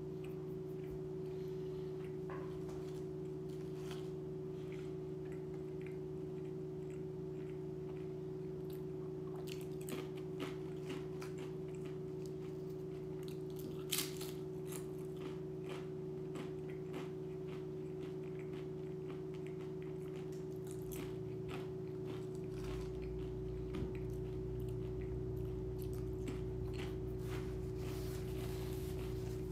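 A person chewing and biting food, with small scattered clicks and crunches and one sharper click about halfway through, over a steady appliance-like hum; a deeper hum joins about three quarters of the way through.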